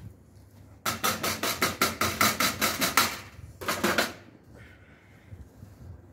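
A quick, even run of about a dozen sharp metallic knocks, about five a second, then a shorter run: flat steel kebab skewers loaded with lamb knocking against a steel tray.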